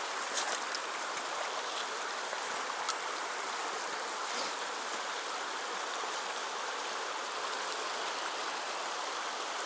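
Shallow, rocky river riffle running steadily over stones, an even rushing of water, with a few light clicks in the first second.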